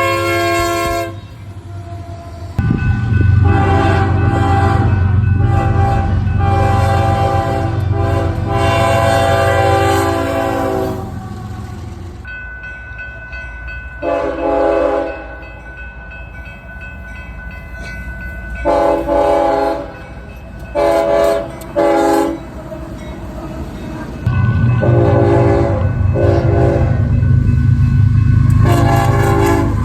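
Locomotive air horns blowing a series of blasts: a long sounding in the first third, then several shorter blasts, over the low rumble of the passing train. The rumble comes up loud about two seconds in and again near the end.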